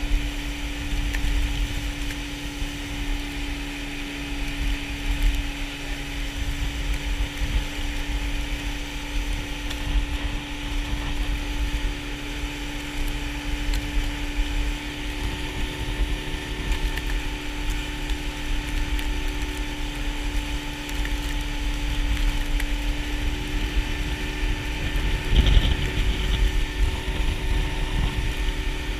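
A boat's motor running at a steady speed, a constant hum over a rumbling low end, with a brief louder burst near the end.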